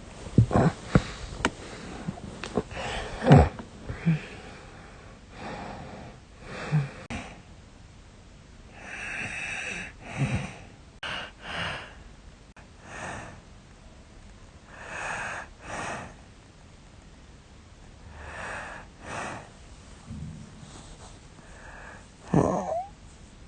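A woman snoring in her sleep: irregular noisy breaths every second or two, some short and sharp, some drawn out, with a loud one about three seconds in and a louder one with a rising tone near the end. She suspects the snoring is a sign of sleep apnea.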